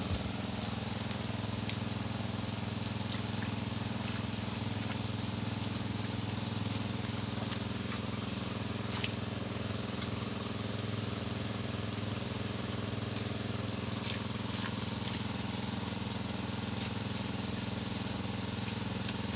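Small engine running steadily at a constant speed, an even low hum that does not change.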